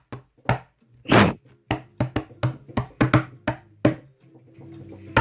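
A quick, irregular run of sharp knocks and taps, with two longer hissy bursts between them. A faint steady hum comes in near the end.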